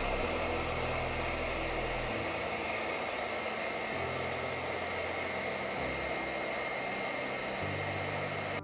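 A steady, loud rushing noise with a thin high whine, over soft background music; the rushing cuts off suddenly at the end.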